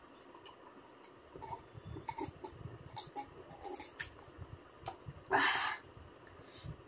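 Close-up eating sounds: small wet clicks and smacks of chewing, then a half-second breath of air about five seconds in, the loudest sound in the stretch.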